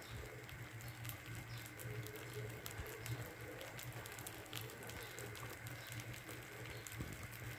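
Baghrir batter cooking in a pan: faint scattered ticks and pops as bubbles burst and open holes across its surface, over a low steady hum.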